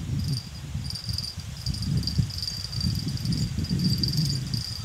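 Insects chirping in a steady, high, pulsing trill, over a low rumbling noise.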